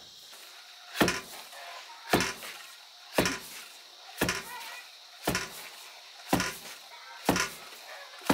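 Long wooden pestle pounding rice into flour in a floor-set mortar (okhal), a dull thud about once a second.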